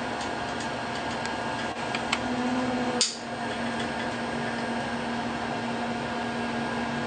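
Steady hum in a small room while silicone caulk is run from a caulking gun, with a few light ticks and one sharp click about three seconds in.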